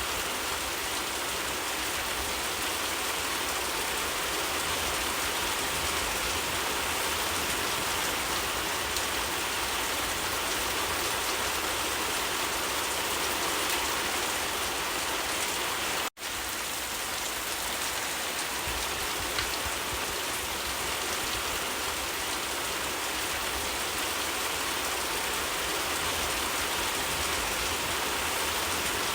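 Steady rain falling on leaves: an even hiss of many drops. About halfway through, the sound cuts out for a split second and comes straight back.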